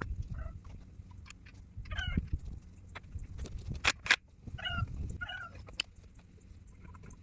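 An animal's short, pitched calls, repeated every second or two, with a few sharp clicks around the middle.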